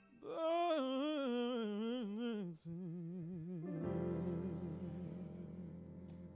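Gospel vocal group singing the closing notes of a song. A lead voice with wide vibrato sings a slow falling phrase. About four seconds in, a full closing chord comes in and is held, fading away near the end.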